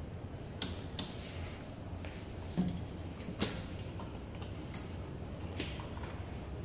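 Scattered light clicks and knocks, about five of them, from hands working the handlebar controls and steel basket frame of a Makita DCU180 cordless wheelbarrow, over a steady low hum. The wheelbarrow's motor is not running.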